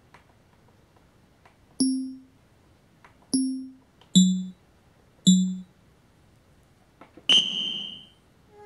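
Electronic tones from a GameTime portable scoreboard's built-in speaker as its clock and period are set and started. There are four short pitched dings over about three and a half seconds, each fading quickly, then one longer, higher ding near the end. Faint clicks come between them.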